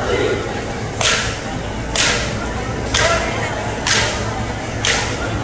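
Sharp cracking strikes, evenly spaced at about one a second, over a steady low hum.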